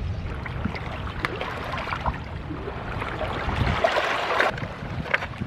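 Seawater washing and trickling along the shore, with a few sharp clicks. Wind buffets the microphone until about two-thirds of the way in.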